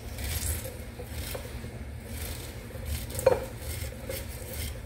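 Kitchen knife cutting kernels off an ear of fresh corn into a bowl, a series of short scraping strokes of the blade down the cob, with one sharp clink about three seconds in.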